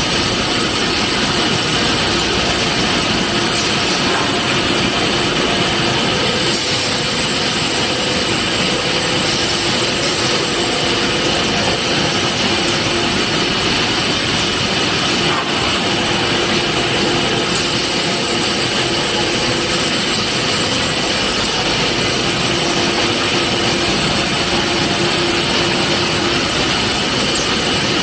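Glass grinding and polishing machine running steadily: a constant loud machine whir with a high steady whine running through it.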